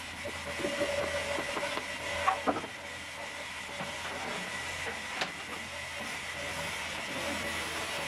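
Steady hissing hum of running sawmill machinery with a thin high whine. Over it come a few sharp wooden knocks and clatters in the first couple of seconds and another single knock about five seconds in.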